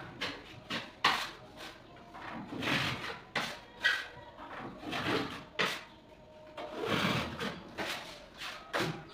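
Irregular scraping strokes, roughly one every half second to a second, some drawn out longer, of a hand tool worked over putty on a gypsum false ceiling at the wall joint.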